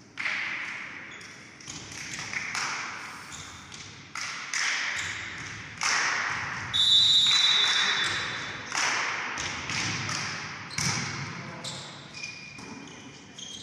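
Referee's whistle blowing once for about a second a little before halfway, signalling the serve, amid repeated sharp volleyball hits and players' calls echoing in the sports hall.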